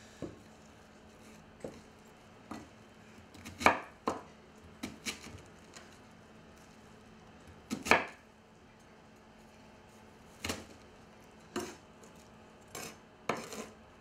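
Large knife chopping an onion on a wooden cutting board: irregular sharp knocks of the blade meeting the board, about fifteen in all, the loudest a little over a quarter of the way in and again just past halfway.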